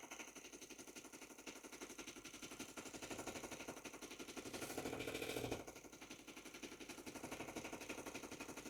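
Small electric mini belt sander and polishing machine running, its little motor making a fast, even rattling pulse; the sound grows louder for about a second near the middle.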